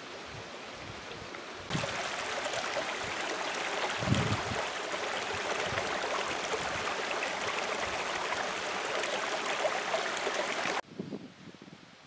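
A shallow stream running over stones: a steady rushing that starts abruptly about two seconds in and cuts off suddenly about a second before the end. Before it there is a fainter steady hiss.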